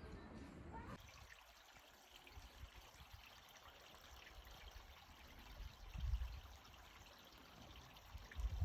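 Liquid pouring and trickling faintly into a small paper cup, with a couple of low handling thumps.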